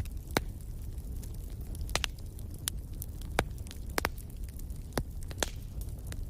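Burning firewood crackling and popping, with a loud snap every second or so among many smaller crackles, over a low steady rumble from the fire.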